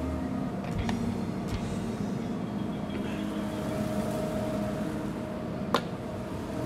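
Steady hum and rush of a commercial kitchen's gas range with its burners lit, with faint held tones. A single sharp metallic click sounds near the end.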